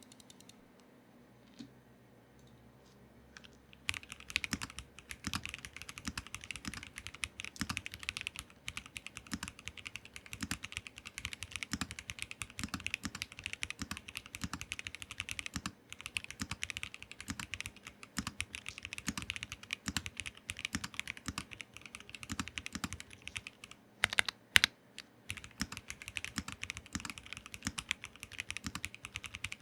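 Typing on a Keychron V1 Max mechanical keyboard: a fast, continuous run of key clicks starting about four seconds in, with a few louder key strikes near the end.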